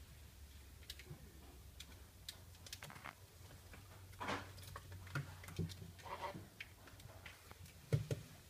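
Lorikeet bathing in a shallow water dish: scattered small ticks and splashes of water, with two louder splashes in the middle and a knock near the end.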